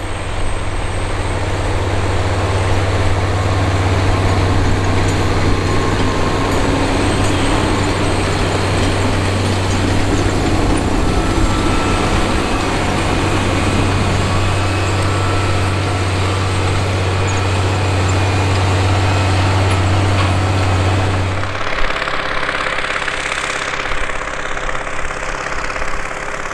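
Case IH Magnum 305 and Steiger 535 tractors working in the field, a steady low diesel engine drone. About 22 seconds in the sound changes abruptly to a Rome 475C articulated tractor's Caterpillar 3408 V8 diesel pulling a disc.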